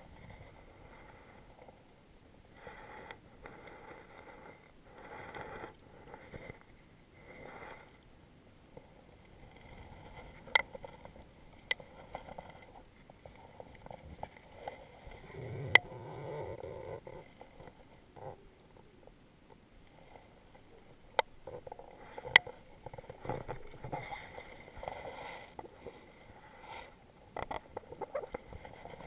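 Water splashing and sloshing in rocky river shallows as a hooked Atlantic salmon is brought in to be landed, with five short sharp knocks about halfway through.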